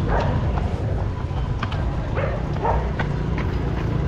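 Wind and handling rumble on a phone microphone carried by a runner on the move, with a few short sharp calls about two seconds in and scattered ticks of footfalls.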